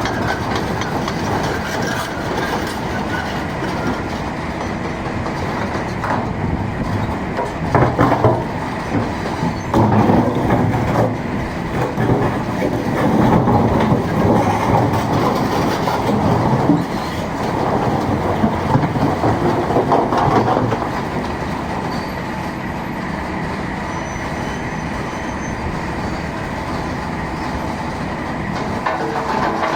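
Volvo excavator and mobile stone crusher running steadily, with louder stretches of rattling and banging about 8 to 21 seconds in as stones are crushed.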